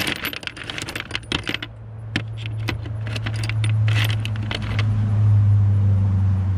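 Loose steel screwdriver bits clinking and rattling against each other in a plastic bit case as a hand rummages through them: a dense flurry at first, then scattered clinks. A low steady hum grows louder underneath from about two seconds in.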